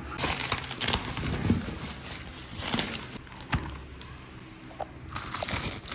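Non-stick granite cookware being handled and unpacked: scattered knocks and clunks with rustling of packaging, busiest in the first second.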